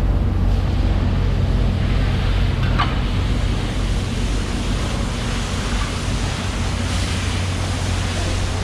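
Steady low machine hum under a constant rushing noise, with a faint short squeak about three seconds in.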